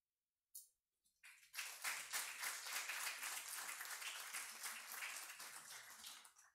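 Audience applauding: many hands clapping together, building about a second in and dying away near the end.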